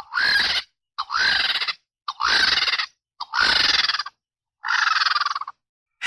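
An animal giving five harsh, rasping calls about a second apart, each opening with a short upward slide in pitch.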